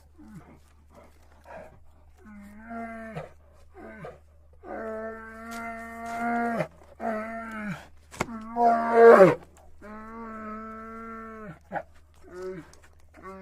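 Andean bear calling: a series of drawn-out, steady-pitched calls, the longest about two seconds, each dropping in pitch as it ends. The loudest, about nine seconds in, is a short falling cry, and a steady low hum runs underneath.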